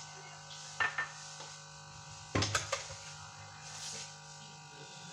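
A few light knocks and clicks, the loudest about two and a half seconds in, over a steady low hum.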